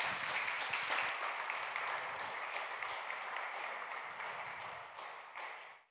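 Small audience applauding, the clapping slowly dying down and then cut off abruptly near the end.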